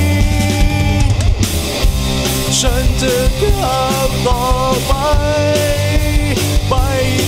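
Rock band music in an instrumental break: a lead electric guitar plays a melody of bending notes over bass and drums.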